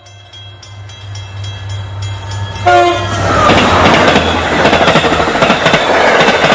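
A train approaches with a low engine rumble that builds, and its horn sounds a short blast about two and a half seconds in. It then passes close and loud, its wheels clattering over the rail joints.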